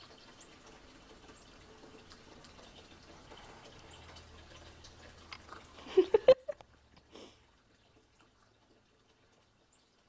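A cat gives a quick cluster of short, loud calls about six seconds in, each rising in pitch, and one softer call a second later, over faint background hiss.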